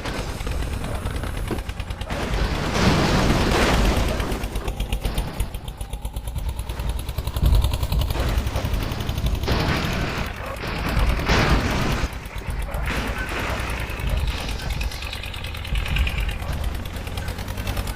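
A heavy vehicle's engine running hard with a fast, rattling beat, swelling louder several times.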